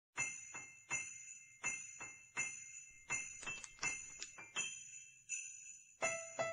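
Sleigh bells shaken in a steady rhythm, about two to three shakes a second, as the opening of a Christmas music track. A keyboard note joins the bells near the end.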